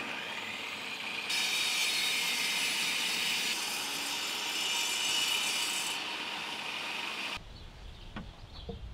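Craftsman table saw spinning up with a rising whine, then its blade cutting through a wooden board for several seconds, the sound brighter and harsher during the cut. Near the end the saw sound stops abruptly and a low rumble with a few light knocks follows.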